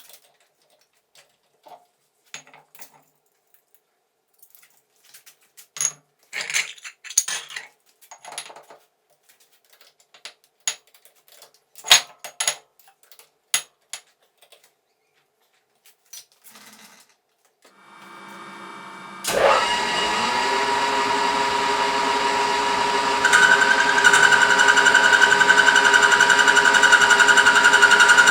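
Scattered metal clinks and knocks, then about two-thirds of the way through an old metal lathe starts and runs steadily, its motor and gearing making a whine with several tones. A few seconds later it steps up louder with a sharper high whine.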